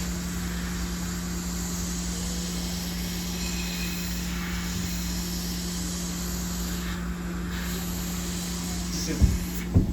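A steady low hum with a constant tone, like a small motor or fan running, and a few light knocks in the last second.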